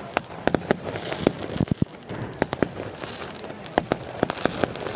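A fireworks display bursting: about a dozen sharp cracks and pops at irregular intervals over a steady hiss of crackle.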